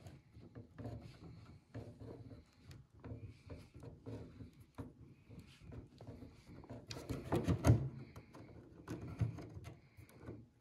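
Small screwdriver driving a servo mounting screw into the pre-drilled plywood servo mount of a model plane's fuselage: faint scraping and clicking of the screw and driver, with a few short squeaks and a louder burst of knocking and rubbing about seven seconds in.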